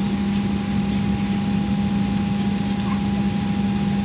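Steady cabin hum inside a Boeing 737-700 airliner: a constant low drone with a thin steady higher tone above it.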